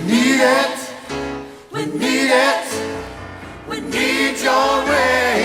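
Gospel worship music: a voice sings wordless, wavering runs over the band in three phrases, with a dip between them.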